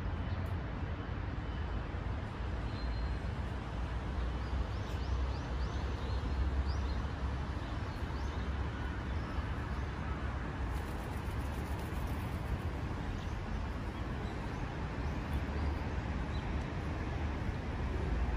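Steady outdoor city ambience: a low rumble of distant traffic, with a few faint bird chirps a few seconds in.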